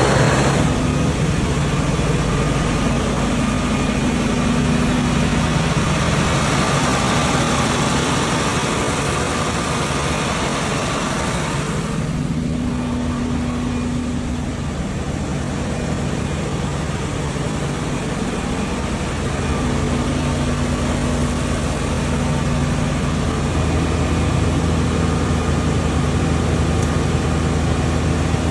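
Engine-driven generator running steadily with an even engine hum.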